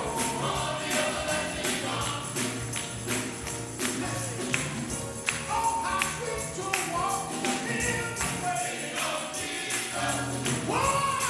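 Gospel choir singing with a band, over a steady percussion beat.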